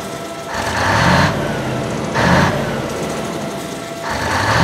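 Heavy truck engine revved three times in short throttle blips, each rising in pitch and dropping back to idle.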